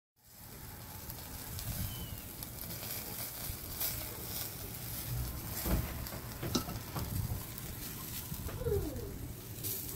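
Fat sizzling and charcoal embers crackling under a whole chicken roasting on a wooden spit over an open fire, with a few sharper pops in the second half.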